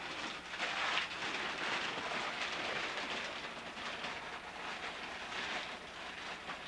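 Hoover Caddy Vac vacuum cleaner running, a continuous, uneven rushing noise.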